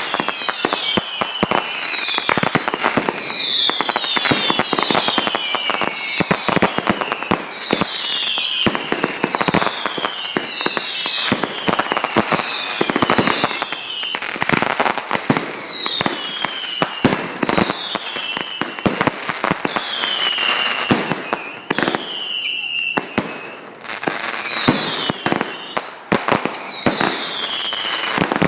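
Consumer fireworks going off in a dense barrage: continuous crackling and popping with many overlapping whistles falling in pitch, a new whistle every second or so.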